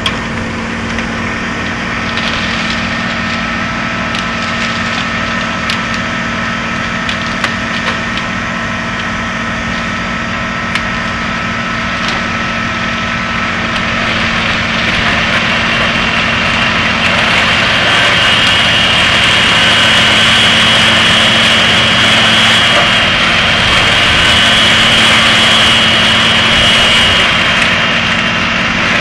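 Fendt 936 tractor's six-cylinder diesel driving a crane-fed wood chipper that is chipping branches, with a few short cracks of wood. About halfway in the chipper gets louder with a high whine as it works harder, easing slightly near the end.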